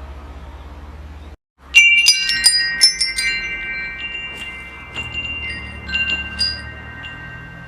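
Wind chimes struck in a quick flurry about two seconds in, several high tones ringing on long after the strikes, with a few lighter strikes a little later. A low steady hum runs underneath, broken by a brief dropout just before the chimes.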